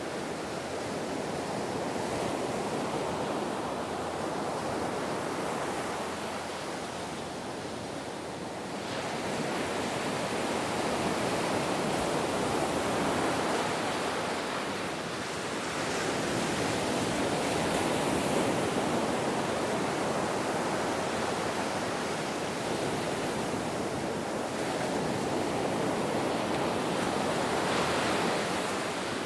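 Ocean waves washing on a shore, a steady rush of surf that swells and eases every few seconds.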